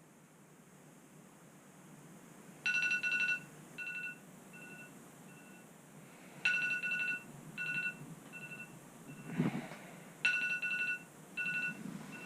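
Electronic ringtone-style beeping: a short phrase of steady high beeps that repeats about every four seconds, each phrase trailing off into fainter echoing repeats. A brief rustle comes about nine and a half seconds in.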